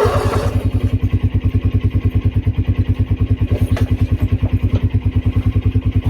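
Old Husqvarna lawnmower's small engine running steadily after a cold start, heard close to its exhaust as a fast, even train of exhaust pulses. A brief rustle sits right at the start.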